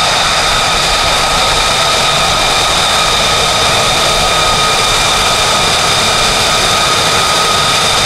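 Lockheed Martin F-35A's Pratt & Whitney F135 turbofan running at taxi power: a loud, steady jet roar with a high, steady whine over it.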